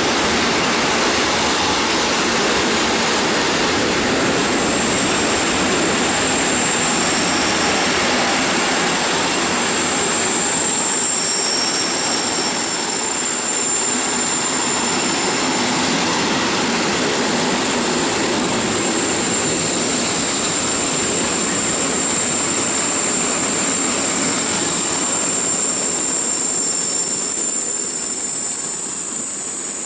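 Intermodal freight train's wagons rolling past at close range: a steady rush of wheels on rail with a thin, high squeal running over it, easing slightly near the end.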